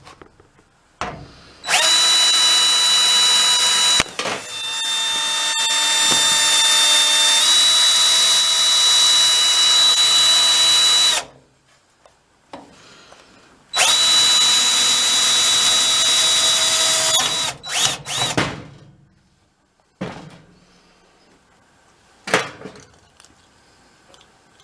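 Power drill running in two long stretches, about nine seconds and then about three and a half, its motor pitch shifting slightly under load. A few short bursts and a couple of clicks follow.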